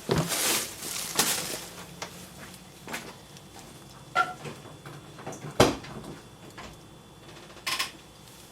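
A series of sharp knocks and clunks, the loudest a little past halfway, over a faint low steady hum.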